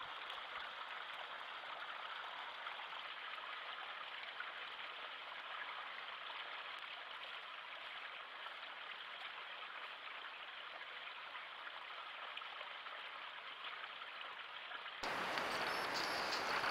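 Steady, dull hiss of trail-camera audio with no distinct events. About fifteen seconds in it switches to a louder, brighter hiss with a faint high whine.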